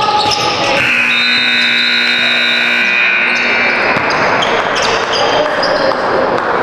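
Basketball game in a gym: a ball bouncing on the court and high-pitched sneaker squeaks over steady gym noise, with one longer squeal about a second in.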